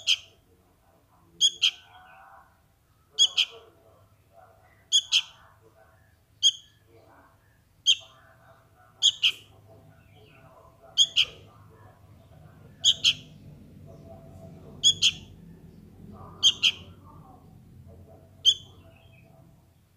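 Sooty-headed bulbul fledgling begging for its parent: short, shrill calls repeated about every two seconds, most of them in quick pairs.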